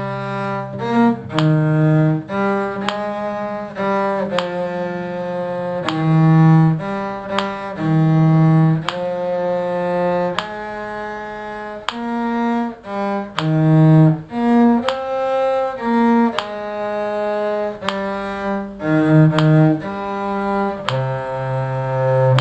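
Bowed string instruments playing a tune in two parts, a low line under a higher one, with notes changing about once a second.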